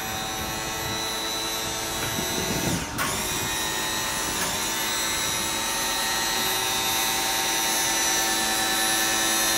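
Electric-hydraulic pump motor of a boat's power engine hatch running steadily as it lifts the cockpit floor, a steady whine with a brief dip in pitch about three seconds in.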